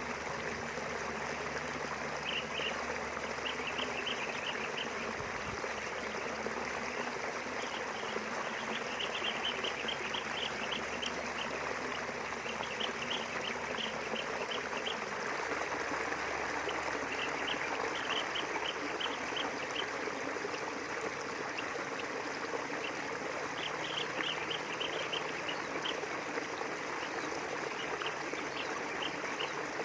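River water flowing steadily, with quick runs of high chirps from about two seconds in that come and go over the flow.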